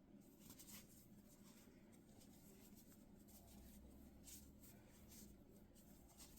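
Near silence, with faint, scattered scratchy rustles of yarn being worked with a crochet hook.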